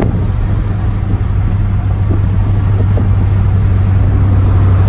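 A vehicle engine running steadily while cruising, heard from inside the cabin. It is a constant low drone with road noise, growing slightly louder toward the end.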